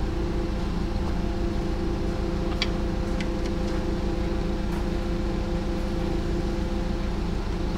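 A machine's engine running steadily at constant speed, with a fast low throb and a few faint metallic clicks about three seconds in.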